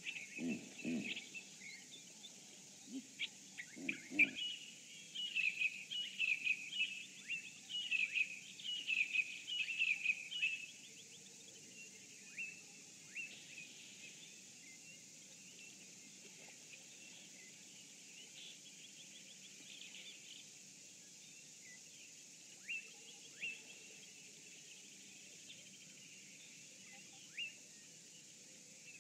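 Wild birds chirping and calling, a busy chorus for the first ten seconds or so, then only scattered single calls over a steady faint hiss. A short low sound near the start and a louder one about four seconds in stand out under the birdsong.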